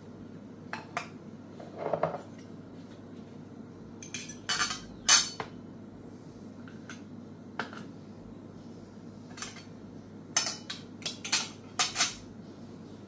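A plate and cutlery clinking and knocking on a countertop as a plate of toast is set out, in scattered short clinks that come thickest about four to five seconds in and again near the end.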